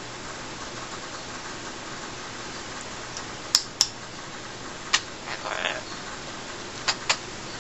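Congo African grey parrot making sharp beak-and-tongue clicks: two quick clicks a little past the middle, one more about a second later, then a brief rasp and two more clicks near the end, over a steady hiss.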